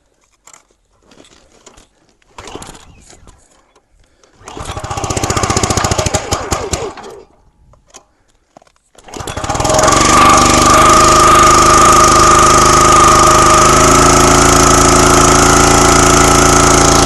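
Brute log splitter's small gas engine being cold-started with the pull cord: a few light clicks and knocks, then it fires and runs for about two and a half seconds before dying. About nine seconds in it catches and settles into a steady run.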